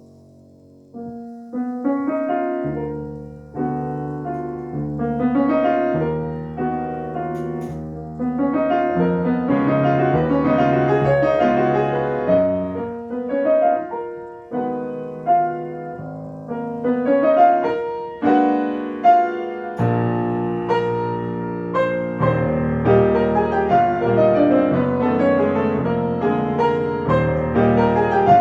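Solo piano playing a classical piece. A chord enters about a second in after a near-quiet moment, and the playing then goes on in a flowing line of many notes that swells and ebbs.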